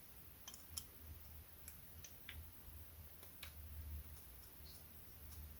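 Faint, scattered light clicks and ticks of small resin-printed plastic parts and screws being handled and fitted together by hand.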